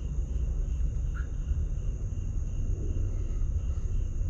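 Night insects trilling steadily in continuous high tones, over a constant low rumble that is the loudest sound.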